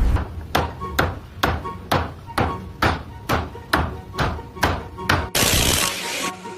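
Rhythmic striking, about two strikes a second and a dozen in all, followed near the end by a hiss lasting about a second.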